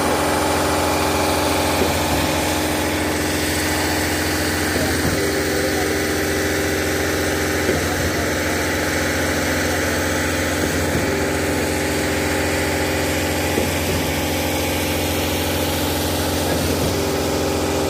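Diesel engine of a trailer-mounted concrete pump running steadily under load while pumping concrete. A faint recurring knock comes about every three seconds.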